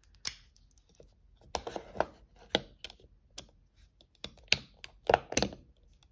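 Irregular clicks and light knocks of a screwdriver and a folding knife being handled on a wooden tabletop as the driver is set into the knife's T8 Torx screws, the loudest knocks a little after the middle and near the end.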